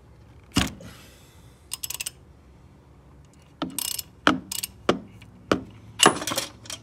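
Socket ratchet clicking in short quick runs, with several sharp metal-on-metal clacks, while the timing chain tensioner is unscrewed from a BMW N20 engine.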